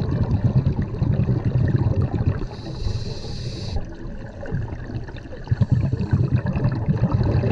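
Scuba diver breathing on a regulator, heard muffled through an underwater camera housing: a low bubbling rumble of exhaled bubbles, broken about two and a half seconds in by an inhalation hiss of about a second, then bubbles again from about five and a half seconds.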